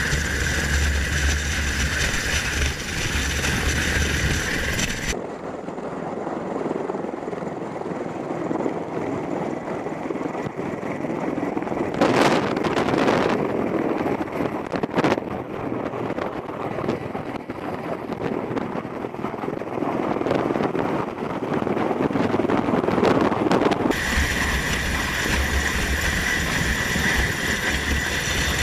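V-22 Osprey tiltrotor's engines and rotors running, with wind on the microphone. About five seconds in, the sound cuts abruptly to a duller, muffled version with a couple of brief sharp surges in the middle, then switches back to the fuller sound about five seconds before the end.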